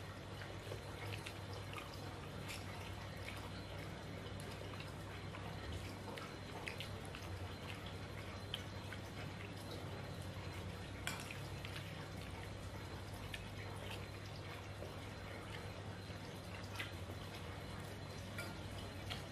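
Quiet eating sounds: scattered small clicks and clinks of a spoon against a ceramic plate, and chewing, over a steady low hum.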